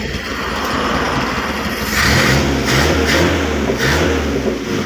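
Toyota 4K four-cylinder petrol engine with a freshly replaced carburetor fuel jet, revved by hand at the carburetor throttle linkage. It idles, then is revved up about two seconds in with three quick throttle blips, and drops back to idle near the end.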